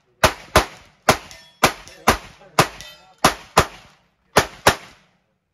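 Replica M1862 .58-calibre Gatling gun firing as its crank is turned by hand: about ten sharp shots at roughly two a second, in uneven pairs with short pauses, each with a brief ringing tail, stopping shortly before the end.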